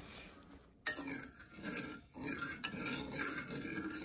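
A plastic spoon stirring and scraping sugar and water in a metal saucepan on a gas burner, the start of a caramel. It begins suddenly about a second in, after a short quiet spell.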